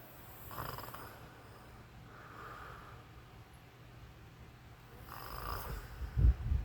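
A sleeping man snoring, three noisy breaths a couple of seconds apart. Low thumps come in near the end and are the loudest sound.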